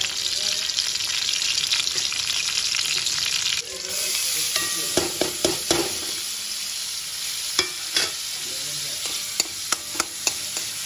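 Sliced green chillies sizzling hard in hot oil in a nonstick pan. About four seconds in the sizzle turns softer as chopped tomatoes and onion fry, and a spatula stirs them, tapping and scraping against the pan again and again.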